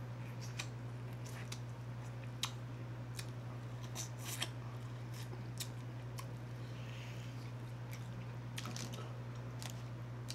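Close-miked mukbang eating: a man biting and chewing Cajun corn on the cob, with sharp wet mouth clicks, lip smacks and crunches scattered irregularly, over a steady low hum.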